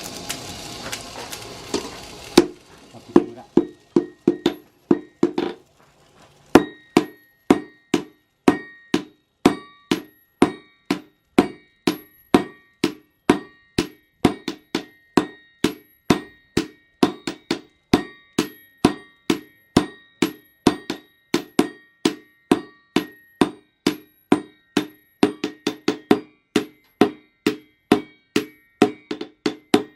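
Hand hammer striking hot steel on an anvil, forging a blade from a chainsaw bar: steady blows about two a second, each with a short metallic ring. The blows pause briefly about six seconds in. A steady rushing noise cuts off about two seconds in, before the hammering starts.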